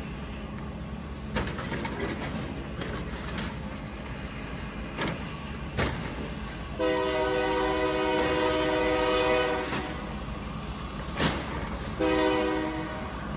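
Train horn blowing: one long blast of about three seconds, then a short blast near the end, over the steady low rumble of a passing train. Several sharp bangs sound at intervals.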